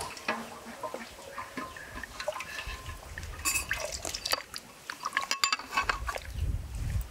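A metal ladle scooping beef-hoof soup from a large aluminium pot and pouring it into a ceramic bowl. Broth splashes and drips, with light clinks of the ladle against the pot and bowl, busiest about three to five seconds in.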